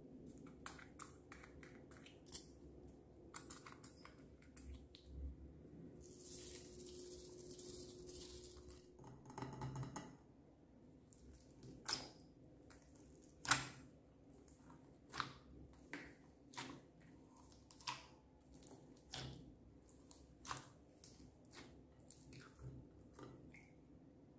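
Hands pressing and squishing glitter-and-foam-bead slime, giving a string of sharp sticky clicks and pops. A few seconds of soft hiss come about a third of the way in. After the middle the clicks come one at a time, about every second or so.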